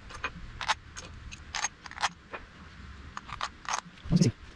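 Metal busbars clinking as they are set down onto the terminal studs of LiFePO4 battery cells: a string of light, sharp clicks, with a louder dull thump near the end.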